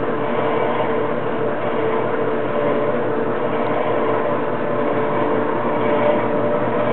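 Restored Cincinnati drill press running at very slow speed, driven by a portable 1/4 HP electric motor rig through a leather flat belt: a steady mechanical whir with a constant hum.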